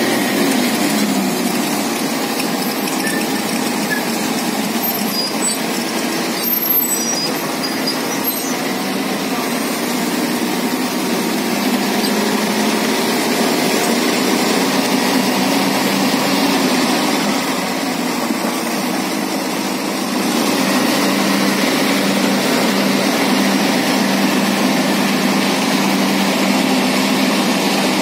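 Diesel engines of two crawler excavators, a Komatsu PC450 and a 350-class machine, running steadily under load as they pull and push a dead excavator's undercarriage. The engines get louder about two-thirds in.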